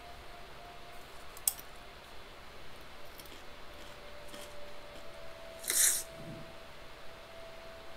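Quiet horror-film sound track: a faint steady drone tone, a single sharp click about a second and a half in, and a brief metallic jangle with a soft thud near six seconds, as of keys set down.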